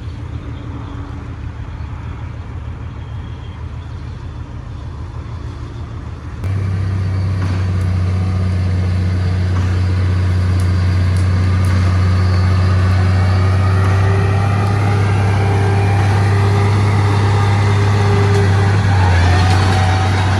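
Heavy diesel construction machinery running steadily. About six seconds in the sound jumps abruptly louder to a deep, steady engine drone, with a higher whine rising near the end.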